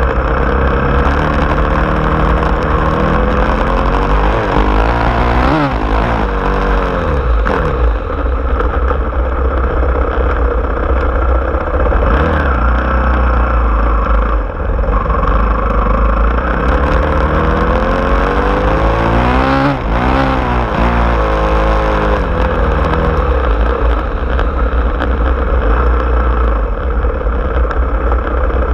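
Small off-road vehicle engine running while driving, its pitch rising and falling with changes in speed, most noticeably about five seconds in and again near twenty seconds, over a steady low rumble.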